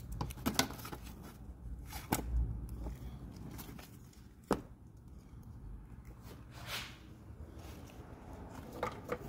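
Multimeter test leads being handled and plugged into the meter: a few scattered clicks and light knocks, the sharpest about four and a half seconds in.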